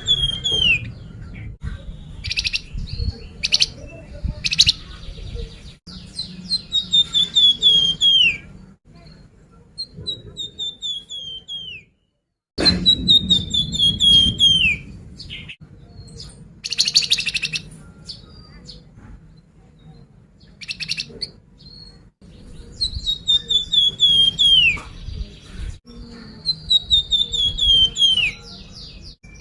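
A flamboyan songbird singing a repeated phrase, a quick string of notes sliding down in pitch, given about every five seconds, with short harsh chattering calls in between. It is the kind of song recording played as a lure to provoke other birds of its kind into singing.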